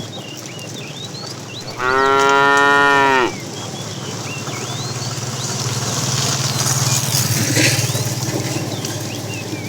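Cattle mooing: one loud, high moo about two seconds in, lasting a second and a half and falling slightly in pitch, followed from about halfway by a low steady hum.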